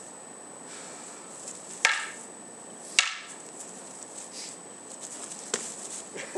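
Wooden bokken practice swords clacking together during sparring: two loud sharp strikes about a second apart, then a lighter knock later.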